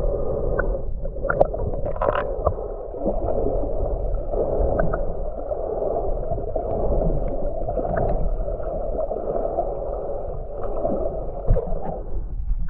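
Muffled underwater noise picked up by a submerged camera: water moving and bubbling against the housing, with scattered short clicks and pops.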